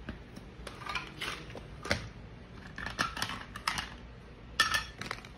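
Toy kitchen pieces (play utensils and food) clicking and clacking as they are handled, in irregular small knocks, the loudest a little before the end.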